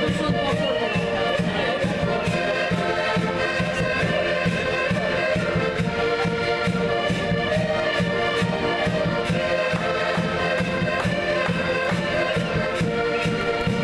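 A group of concertinas, Portuguese diatonic button accordions, playing a traditional tune together: sustained reedy chords over a steady, rhythmic bass beat.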